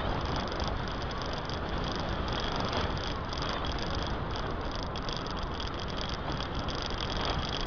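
Steady noise of a car driving: wind and road noise from the moving car, picked up by a small action camera mounted on its side.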